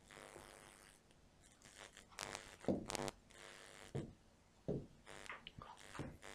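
Short taps and knocks of a pen on an interactive whiteboard screen, about half a dozen, the loudest about three seconds in, over a faint steady hum.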